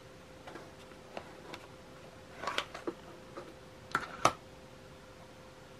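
Small clicks and taps of steel precision screwdriver bits and their plastic case being handled. A few light clicks come at first, then a cluster of sharper ones, with the loudest pair about four seconds in.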